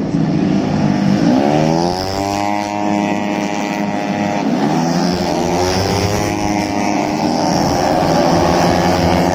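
Racing motorcycle engines revving hard as the bikes accelerate on the track, their pitch climbing steeply twice and then holding high.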